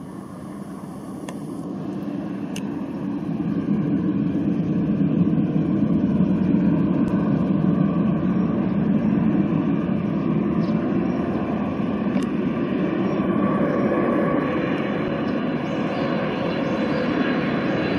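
Jet noise from a Boeing 777-300ER's twin GE90 turbofans on final approach: a steady rumble that swells over the first few seconds as the airliner draws nearer. It then holds loud, with a faint whine over it in the later seconds.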